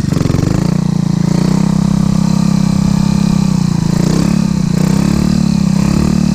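Small motorcycle engine held on the throttle during wheelie practice, its pitch dipping then climbing in the first second or so and then holding steady, with slight wavers around four seconds in.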